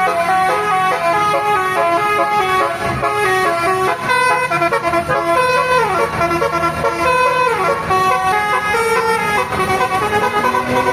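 Bus telolet horn (a Basuri multi-trumpet horn) playing a quick stepped melody, with falling sliding notes about six and seven and a half seconds in. A steady low drone runs underneath and rises near the end.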